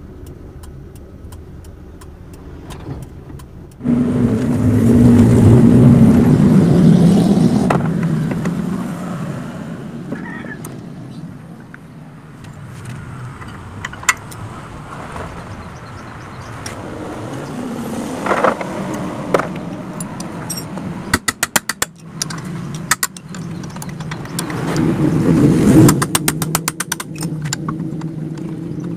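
A car running loudly for several seconds, starting suddenly and fading away. Then scattered metal clicks and two fast runs of even clicking from hand tools being worked on a front disc-brake caliper.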